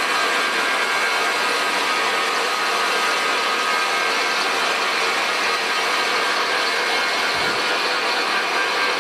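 Metal lathe running with its chuck spinning, the cutting tool facing off the end of a small threaded workpiece; a steady, even machine noise throughout.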